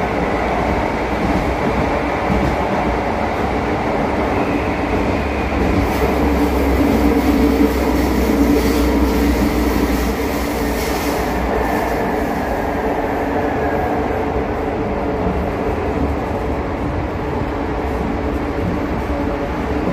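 Subte Line E metro train running, a steady rumble of wheels on rail and traction motors that swells for a few seconds midway.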